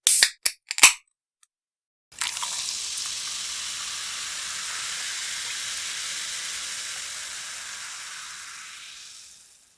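Editing-app sound effects: three quick sharp snaps in the first second, then after a short silence a steady high hiss that starts suddenly about two seconds in and fades out near the end.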